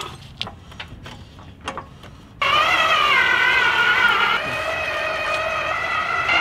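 A few sharp clicks from a steel floor jack being set and pumped on a tracked Trailer Valet electric dolly. About two and a half seconds in, the dolly's electric drive motor starts with a sudden steady whine of several tones that waver slightly as it pulls a 5,000-pound Humvee.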